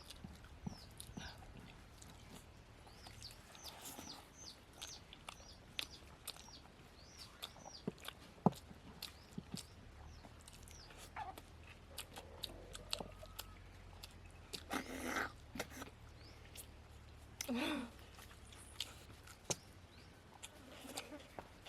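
Close-up eating sounds of pooris and mutton curry being eaten by hand: chewing, lip smacks and many small mouth clicks. Two short, louder sounds stand out about 15 and 17.5 seconds in.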